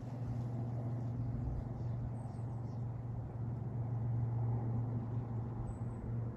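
A steady low hum held at one pitch throughout, over faint background noise.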